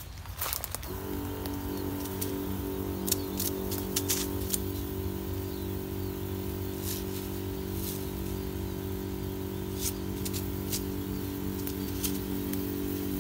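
A motorised crop sprayer's pump motor switching on about a second in and then running at a steady pitch, with scattered light clicks and rustles as the sprayer is carried through the cane leaves.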